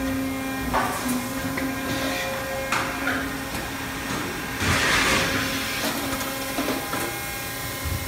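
Steady multi-tone machinery hum from a powered-up Salvagnini P4 CNC panel bender, with a few short hissing noises; the loudest hiss comes about five seconds in.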